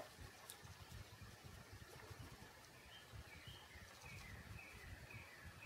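Near silence, with one short click at the very start as the locking pliers are handled. Faint short bird chirps repeat through the second half.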